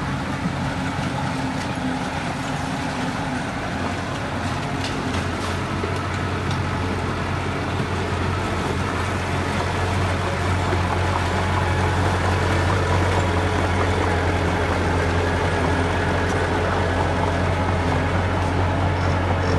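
Heavy construction machinery's diesel engine running steadily with a deep hum, growing somewhat louder about halfway through.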